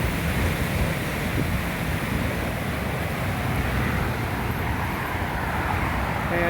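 Strong gusty wind buffeting the microphone, a steady rumbling rush, with the distant jet noise of a landing Southwest Airlines Boeing 737 mixed into it.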